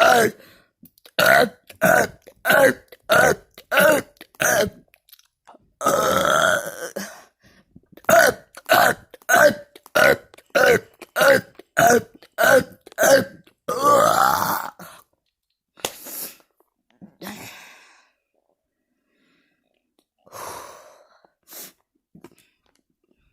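A person burping on purpose in quick succession, short burps about two a second. Two longer, drawn-out burps break the run, and the last third holds only a few fainter, spaced-out sounds.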